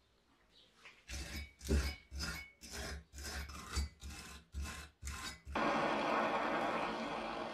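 Hand wire brush scrubbing rust off a blowtorch's steel burner and valve, about ten rasping strokes at roughly two a second. Near the end the strokes stop and a cartridge gas torch's flame starts a steady hiss as it heats the burner.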